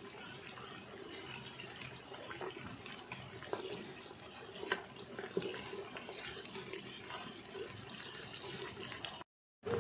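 Star anise, cinnamon, cardamom and pounded aromatics sizzling steadily in hot oil in an electric multicooker pot, with a few light clicks scattered through. The sound cuts out briefly near the end.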